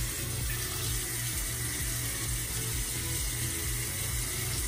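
Water running steadily from a bathroom tap into the sink.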